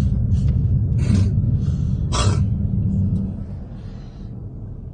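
Steady low road rumble inside a moving car's cabin on snowy streets, with two short hiss-like bursts about one and two seconds in. The rumble eases off and gets quieter from about three and a half seconds.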